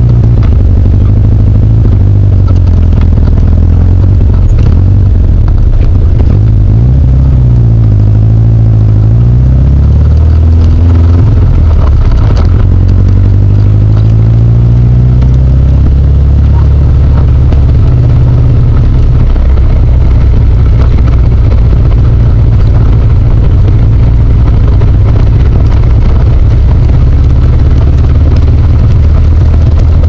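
Birkin Seven's engine, heard loud from the open cockpit, pulling away and driving on. Its pitch falls and rises with gear changes about a third of the way in, climbs again, then holds steady at cruise.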